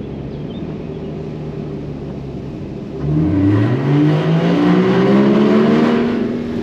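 Porsche 981 Cayman GTS's 3.4-litre flat-six engine running steadily, then accelerating hard about three seconds in. Its note climbs in pitch and grows louder for about three seconds, then eases slightly near the end.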